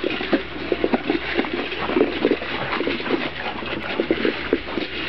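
A litter of Kuvasz puppies eating dry kibble from a steel bowl: a steady run of many small, irregular crunching and smacking sounds.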